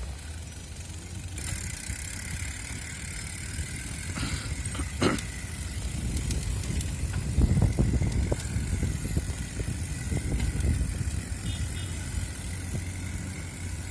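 Rolling rumble of a bicycle ridden along a concrete path, with gusty wind noise on the microphone that grows stronger in the middle, and one sharp knock about five seconds in.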